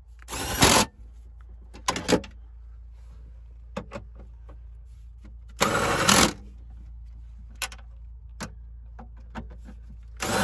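Hand socket ratchet clicking in three short runs, about five seconds apart, as the battery hold-down bracket bolts are tightened, with a few lighter metal clicks and knocks between.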